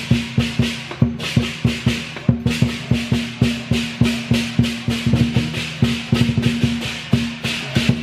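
Chinese procession percussion: drums and cymbals beaten in a fast, steady rhythm of about four strokes a second.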